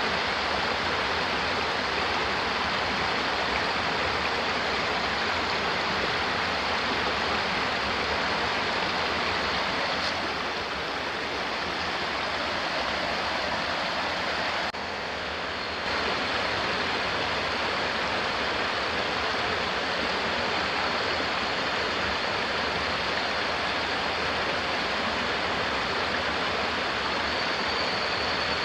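Shallow rocky stream running steadily, a constant rush of water over stones. It dips slightly in level about halfway through.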